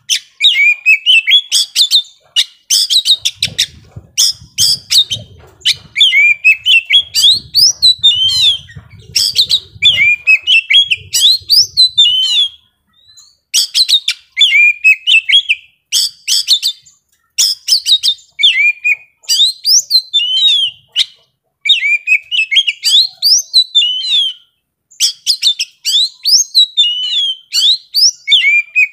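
Male Oriental magpie-robin singing almost nonstop: loud, rapid phrases of varied whistles, trills and clicks, broken only by a few short pauses.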